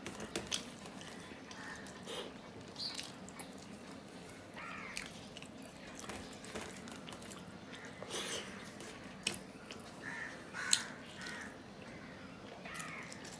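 Eating sounds of a man eating rice mixed with mashed hilsa fish by hand: fingers squishing and mixing food on a steel plate, and chewing with scattered mouth smacks and clicks.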